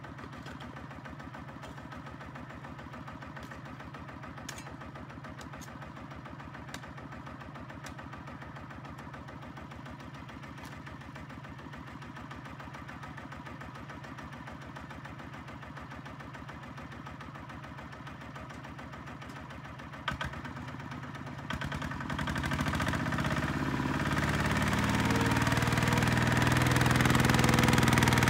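Single-cylinder diesel engine of a HINOTA walking tractor idling steadily, with a few faint clicks. About twenty seconds in it is revved up and runs much louder, laboring as it pulls the loaded sand trailer out of the mud.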